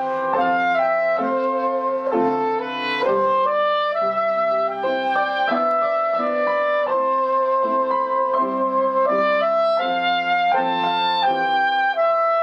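Soprano saxophone playing a slow melody line over piano accompaniment.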